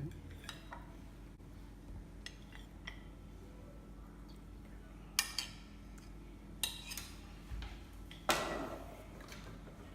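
A utensil clinking and scraping against a bowl while chocolate and butter melt over boiling water for icing: scattered light clinks, with louder ones about five, six and a half and eight seconds in.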